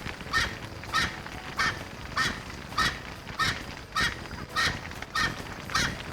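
Erckel's francolin calling: a harsh, cackling call repeated evenly about every 0.6 seconds, a call to another francolin.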